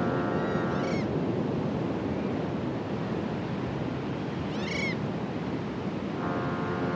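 Ship's horn sounding a steady multi-tone blast that cuts off about a second in and sounds again near the end, over the steady wash of the sea. A gull calls twice, near the start and about five seconds in.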